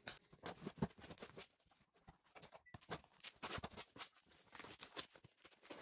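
Hands picking at and peeling packing tape on a cardboard box, then handling the box: irregular scratches, taps and rustles of cardboard and tape.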